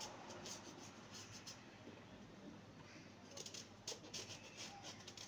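Faint scraping strokes of a vegetable peeler taking the skin off an eggplant. They come in two short runs: one in the first second or so, the other a little after three seconds.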